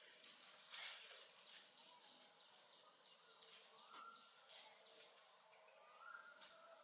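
Near silence: faint outdoor background hiss with a series of quick, faint high ticks, and a couple of faint high squeaks about four and six seconds in.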